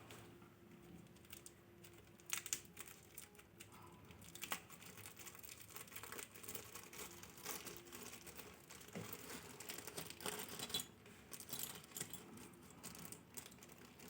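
Faint crinkling and rustling of packaging as a small pouch is opened and its contents handled, with scattered light clicks.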